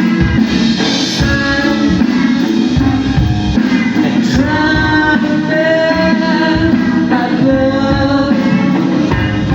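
Rock band playing live, a singer's voice over guitars and a drum kit keeping a steady beat.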